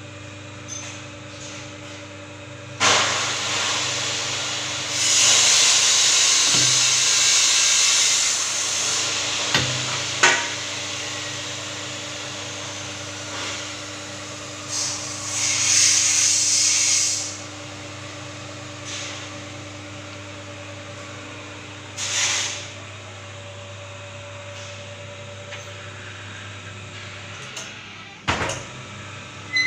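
Motor-driven roll bending machine for pipe and hollow section running with a steady hum. Several long spells of loud hissing noise ride over it, and there is a sharp knock about ten seconds in. The hum cuts out briefly near the end.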